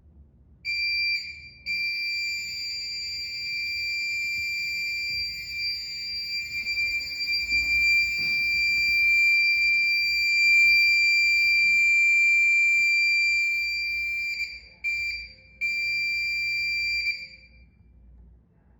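Smoke detector sounder base on a fire alarm system giving a loud, steady, high-pitched electronic alarm tone during an alarm test. After a brief break near the start it sounds steadily for about thirteen seconds, then gives two short bursts before it stops.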